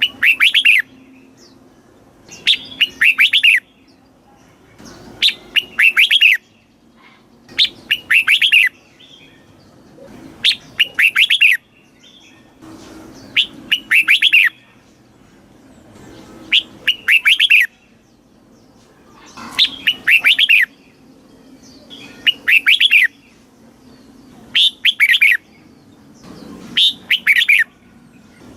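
Red-whiskered bulbul singing, a training recording of its song. It repeats a short, bright phrase of quick warbled notes about every two and a half to three seconds.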